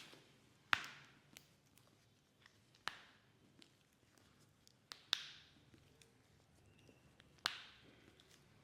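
Four sharp snaps during a chiropractic treatment on a patient's back, evenly spaced about two seconds apart, each with a brief fading tail.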